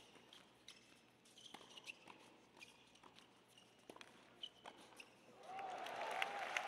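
Tennis rally: sharp hits of racket strings on the ball, a few at a time, at a quiet distance. About five and a half seconds in, crowd applause breaks out as the point ends.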